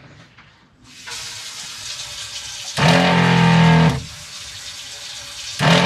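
A boat's 12-volt freshwater pressure pump, running without an accumulator tank, cuts in for about a second twice, starting and stopping abruptly, while water runs from the opened tap with a steady hiss in between.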